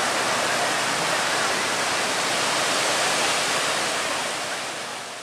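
Ocean surf breaking and washing up the beach, a steady rushing hiss that fades out near the end.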